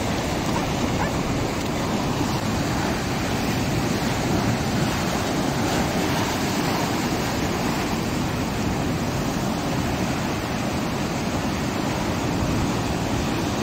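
Ocean surf breaking and washing over rock ledges: a steady, unbroken rush of water.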